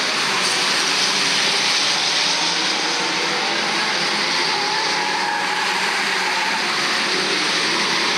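The engines of a pack of old saloon race cars running together at speed around the oval: a steady, dense blend of several engines with none standing out and no pauses.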